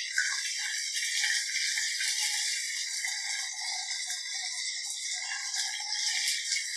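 Ginger-garlic paste, green chillies and whole spices sizzling and crackling steadily in hot oil in a steel kadhai, stirred with a wooden spatula that scrapes the pan now and then.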